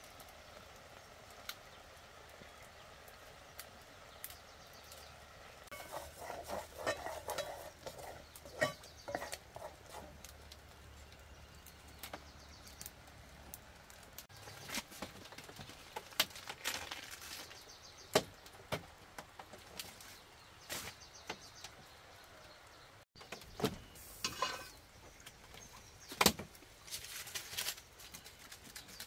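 Cooking at an open wood fire: scattered light clicks and knocks of a metal pot, lid and firewood being handled, over a faint steady background.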